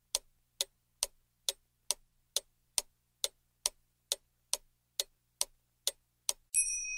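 Ticking-clock sound effect, about two ticks a second, counting down thinking time on a quiz question. Near the end a bright chime starts ringing.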